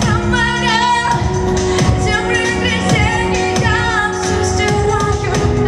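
A woman singing a pop song into a microphone, a sustained wavering melodic line without clear words, over a recorded backing track with a steady beat.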